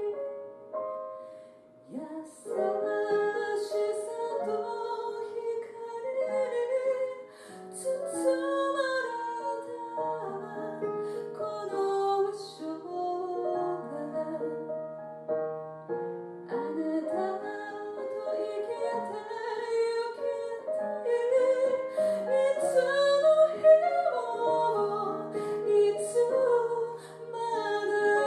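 A woman singing a slow, gentle song with piano accompaniment, her notes held long and gliding between pitches.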